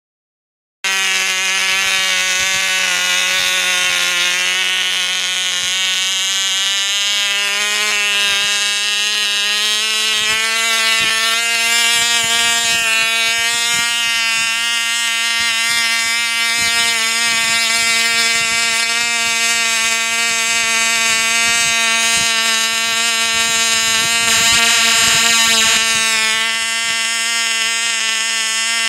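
Ringmaster control-line model biplane's small engine running at high speed on the ground, a steady high-pitched buzz that cuts in suddenly about a second in. Its pitch rises slightly a few seconds in and then holds steady.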